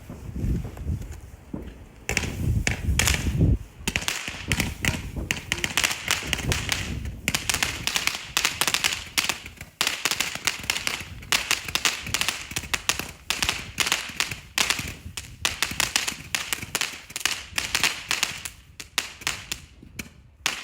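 Svea Fyrverkeri 'Machine Gun' firework going off: a fast, continuous string of sharp cracks, many a second, starting about two seconds in and thinning out near the end.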